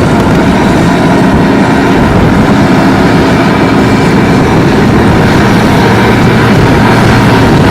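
Heavy John Deere harvest machinery running steadily: a loud, unbroken engine and machine rumble with a few steady tones in it.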